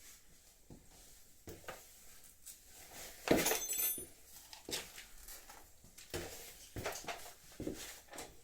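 Hands working on motorcycle bodywork and tools: scattered clicks, knocks and rustles of handling, with a sharp metallic clink that rings briefly about three seconds in.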